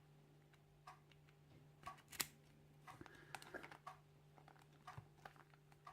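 Faint scattered clicks and light taps of a cheap bike lock with a plastic casing being handled, the sharpest click about two seconds in, over a steady low hum.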